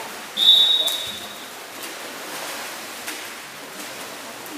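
Referee's whistle blown once, a single steady high blast about a second long shortly after the start, over the steady hiss of an indoor pool hall.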